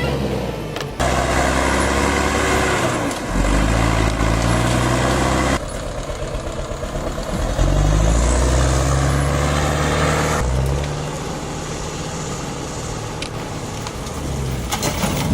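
Heavy vehicle engines running under load, rising and falling in pitch as they rev. The sound changes abruptly about one, five and a half, and ten and a half seconds in, as one clip cuts to the next.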